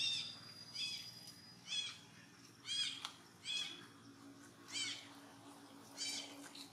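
Infant macaque giving a string of short, high-pitched calls, about one a second, each rising then falling in pitch.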